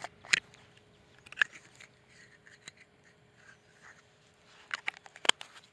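A jar of Gulp! Alive! minnow bait being opened and handled: its screw lid twisted off and fingers picking out a soft bait, a scatter of small clicks and scrapes, with a sharper cluster near the end.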